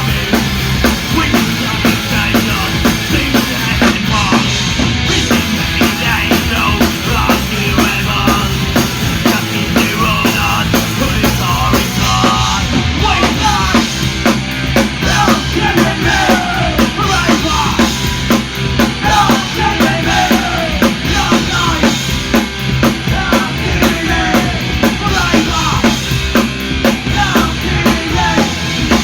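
Loud punk rock band playing, with a drum kit keeping a fast, steady beat under the rest of the band.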